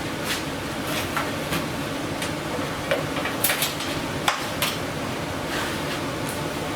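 Irregular metallic clinks and clanks, about a dozen, as tools and metal pieces are handled and set down, over a steady background hum.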